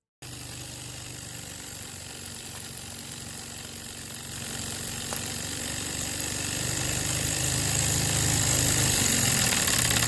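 Small live-steam locomotive running with a steady hiss and a fast, rumbling beat, starting suddenly and growing louder toward the end.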